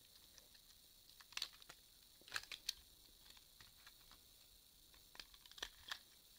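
Faint, scattered small clicks and taps from a plastic toy engine being handled and turned over in the hands. The clicks come in small clusters about a second and a half in, around two and a half seconds, and again near the end.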